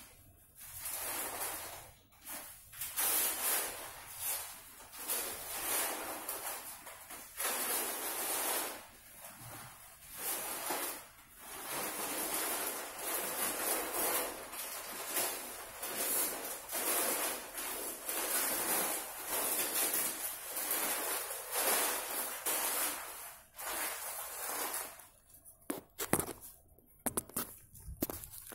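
Paint spray gun hissing in stretches of a few seconds, stopping and starting as the trigger is pulled and released. Near the end, a few sharp knocks.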